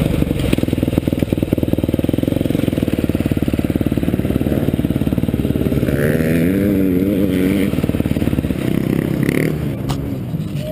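Motocross bike engines running close up: the rider's own dirt bike carries the sound while riding the dirt track and pulling up. From about six seconds in, an engine note wavers up and down for a couple of seconds, then the sound eases a little.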